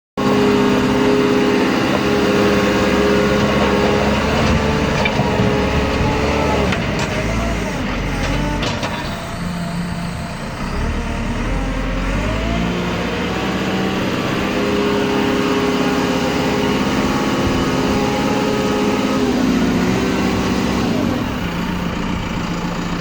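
JCB 4CX backhoe loader's diesel engine running under work, its engine speed rising and falling several times. There are a few sharp knocks about a third of the way in.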